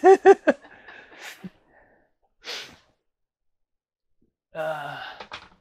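A person's non-speech vocal sounds: a quick run of four or five short voiced pulses at the start, a short breathy burst about two and a half seconds in, and a brief voiced hum near the end, with silence between.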